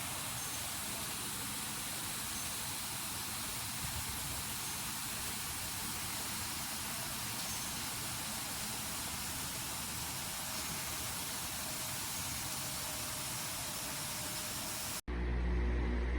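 Comfort Zone 16-inch wall-mount fan running: a steady, even hiss of moving air. It cuts off abruptly about fifteen seconds in, giving way to a low rumble.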